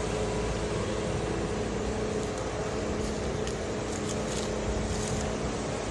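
An engine-driven machine running steadily, a continuous hum with a few steady low tones.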